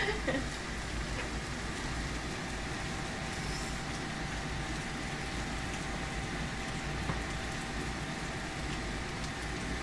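Onion fritters (pyaji) deep-frying in hot oil in a wok, a steady sizzle, with a faint steady whine underneath.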